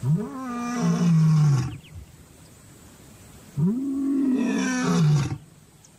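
Male lion roaring: two long calls about two seconds apart. Each swells up in pitch at the start, holds, then steps down before breaking off. This is a territorial roar proclaiming his status over the area.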